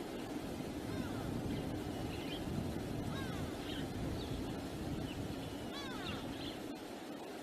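Wind buffeting the microphone in a steady low rumble, with a bird calling again and again in short curved chirps every second or two.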